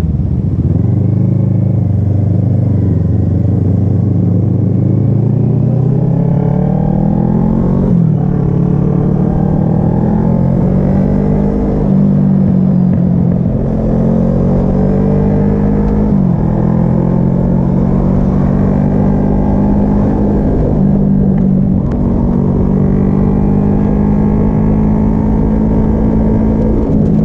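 Kawasaki ER-6n's parallel-twin engine pulling through the gears while being ridden: the engine note climbs steadily, then drops sharply at each upshift, several times over.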